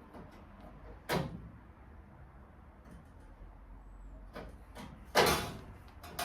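Two sudden clunks, a lighter one about a second in and a louder one about five seconds in, with a few faint clicks between.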